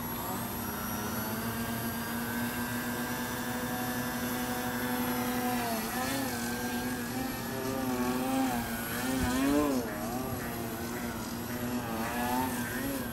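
Electric motor and propeller of a Yak 55 EPP foam RC airplane buzzing, holding a steady pitch at first, then rising and falling repeatedly with throttle changes from about six seconds in.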